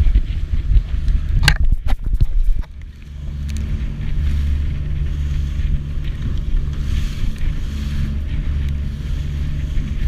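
Boat motor running on choppy water with wind buffeting the microphone, a few sharp slaps about one and a half to two and a half seconds in.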